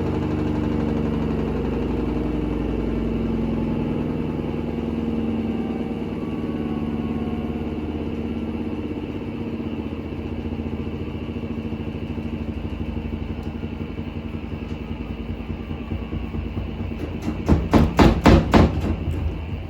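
Hoover H Wash 300 washing machine winding down from a badly unbalanced spin, its motor and drum sound falling in pitch and fading. Near the end comes a rapid run of loud thumps as the off-balance drum bangs and the machine jumps while slowing.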